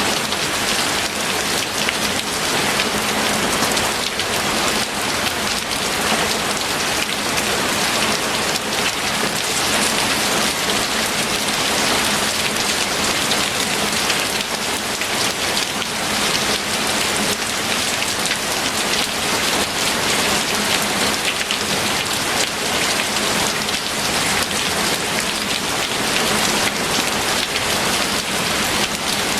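Steady heavy rain falling, a dense even patter of drops on a surface.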